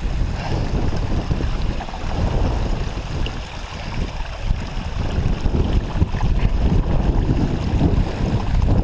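Strong wind buffeting the microphone: a loud, gusting low rumble that rises and falls irregularly.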